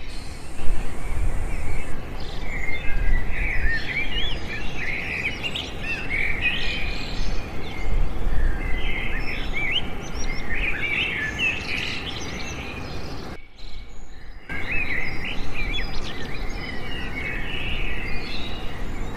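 Many small birds chirping and twittering, quick short calls over a steady background hiss. The sound cuts out for about a second midway.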